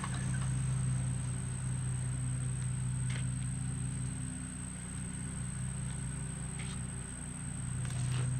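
Bandsaw mill's 23-horsepower engine idling steadily with a low hum once the cut is finished, with a few faint clicks.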